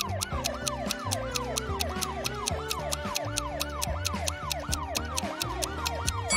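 Countdown-timer music: a synth tone that sweeps up and down about three times a second over rapid, even ticks and a low bass line.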